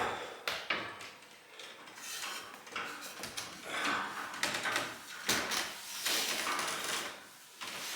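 Irregular clattering, knocking and scraping of hard objects being handled and set down, at a moderate level, with quieter spells about a second and a half in and near the end.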